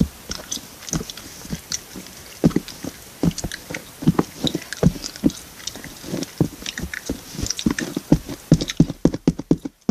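Sticky homemade Blu Tack slime being squished and pulled in the hands, making irregular wet clicks and pops.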